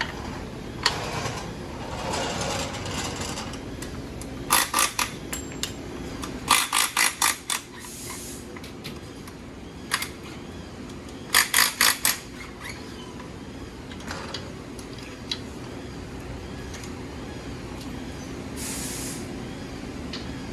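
An air tool fired in quick short bursts, in several rattling groups of three to five, over a steady low shop hum, with a brief hiss of air near the end.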